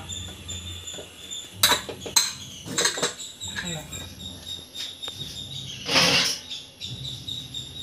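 Aluminium pressure cooker lid being unlocked, twisted and lifted off the pot: a series of sharp metal clicks and clanks, with one louder, longer rasp about six seconds in.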